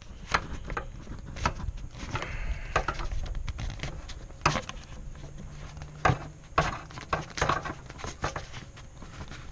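Hands pushing and working a ribbed rubber air intake duct onto its fitting: scattered rubbing, creaks and small clicks and knocks.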